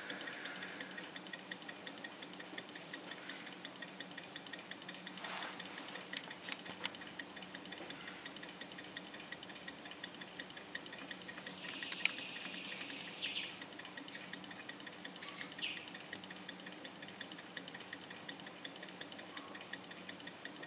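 Small model Stirling engine with a glass piston running on a cup of hot water: a light, even ticking from its moving parts as the flywheel spins. A few louder clicks and short rustles come about five and twelve seconds in.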